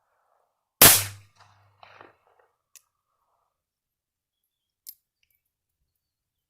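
A single shot from a Bond Arms Roughneck derringer with a .22 LR barrel: one sharp crack about a second in, with a short echo trailing off, followed later by two faint clicks.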